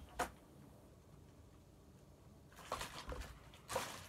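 A short tap just after the start, then quiet room tone, then a few brief rustling, scraping handling noises in the second half as objects are moved about.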